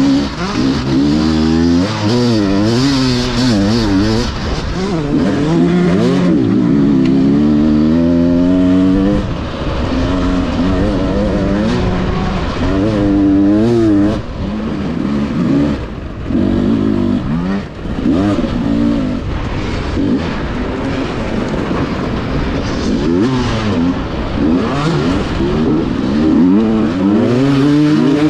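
Enduro dirt bike engine revving up and down over and over, heard close up from the rider's own camera, its pitch rising and falling every second or so as the throttle is worked.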